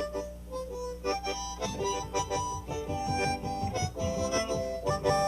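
Harmonica playing a melody. About two seconds in, a rhythmic strummed or plucked accompaniment joins it.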